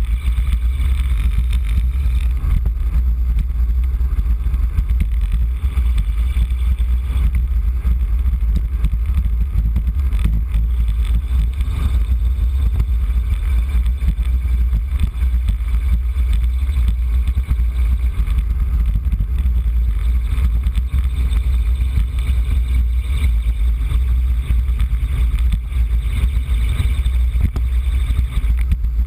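Wind buffeting the microphone of a bike-mounted camera on a fast road-bike descent: a loud, steady low rumble, with a fainter hiss of tyres on the wet road.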